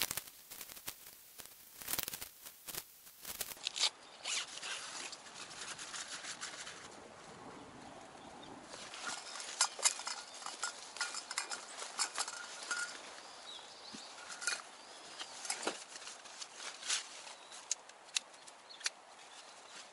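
Hands handling a nylon dome tent and its poles: fabric rustling with many scattered sharp clicks and taps of poles and gear.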